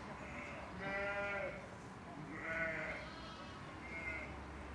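Sheep bleating, about four separate calls, some short and high, the loudest around one second in and again past the middle.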